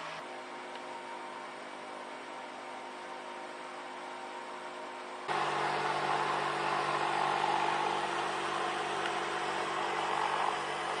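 Small 12-volt fan of a homemade ice-chest air cooler running, a steady whir with a hum. About five seconds in it suddenly gets louder and the hum changes.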